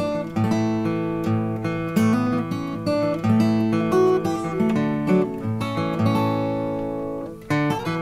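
Background music: acoustic guitar strumming and picking, with a brief dip just before the end.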